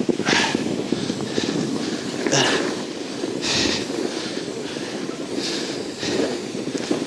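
Snowboard sliding and scraping over rough, choppy snow, a steady rumble with short hissing scrapes every second or so, and wind buffeting the microphone.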